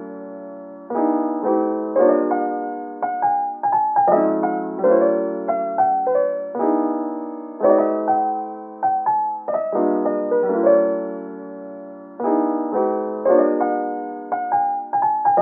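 Background music: a gentle piano tune in repeating phrases of struck notes.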